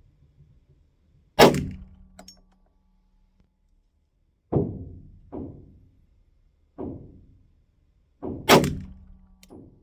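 A string of about seven 9mm pistol shots, fired one at a time at uneven spacing. Two of them, about a second and a half in and near the end, are much sharper and louder than the duller shots in between. The shots come from a Glock 45 firing 124-grain rounds to shoot a group on its current optic zero.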